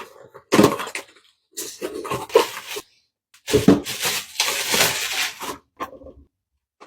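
Children making vocal sound effects: a few irregular bursts of voice, with a longer breathy, hissing noise about halfway through.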